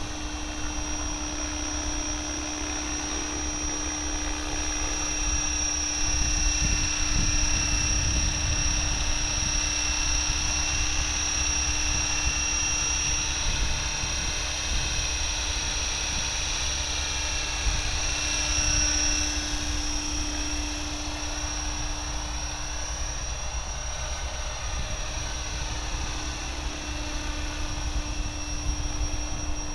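Align T-Rex 550E electric RC helicopter in flight: a steady high whine from its brushless motor and gears over the hum of the spinning rotors. It grows louder a few seconds in, and the pitch bends slightly later on as it manoeuvres.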